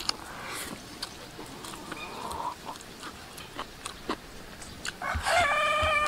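Soft eating sounds of chewing and small clicks of chopsticks against a bowl, then near the end a rooster crows once, a long held call that is the loudest sound.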